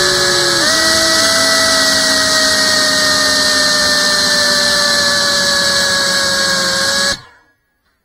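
Brushless motors and propellers of a GEPRC CineLog 35 cinewhoop quadcopter whining steadily, heard close up from the drone's own camera, their pitch shifting slightly as the motors change speed about half a second in. The sound cuts off suddenly about seven seconds in.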